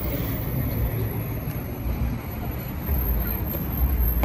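Steady city street traffic noise, a low rumble of passing cars.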